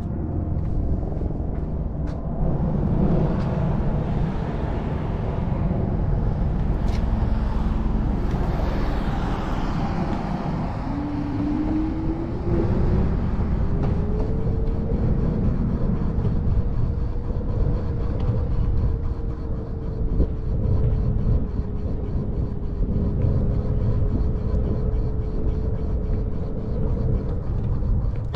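Road traffic over a heavy low rumble, with a faint steady hum that rises in pitch about eleven seconds in and then holds until near the end.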